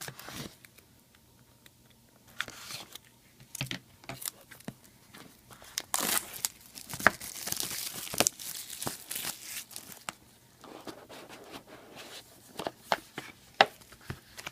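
Trading card box packaging being torn open and crinkled by hand, in irregular bursts of tearing and rustling with a few sharp taps, busiest from about six to nine and a half seconds in.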